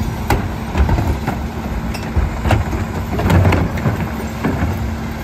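McNeilus rear-load garbage truck running while recycling carts are tipped into its hopper, with repeated knocks and clatter of recyclables falling in and plastic carts banging, loudest about three and a half seconds in.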